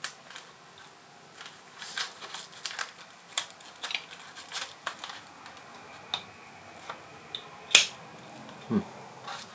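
Handling noise from a folding saw and its stitched sheath: scattered small clicks, taps and rustles as the saw is worked into the sheath, with one sharper click about three-quarters of the way through.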